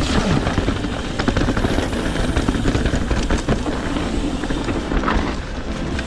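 Trek Fuel EX 7 mountain bike rattling and knocking over a rough trail, with wind rushing over the action camera's microphone.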